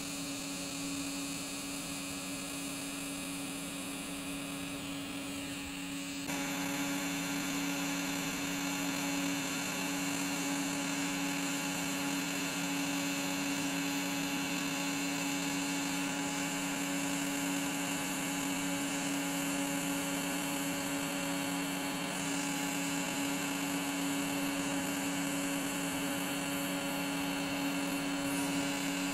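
TIG torch arc running steadily during TIG brazing: a constant electrical hum over a hiss, stepping up suddenly in level about six seconds in.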